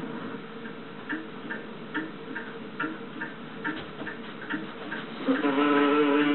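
Cartoon soundtrack playing from a television: an even ticking, about two or three clicks a second, each followed by a short low blip. About five seconds in, a louder steady pitched tone comes in over it.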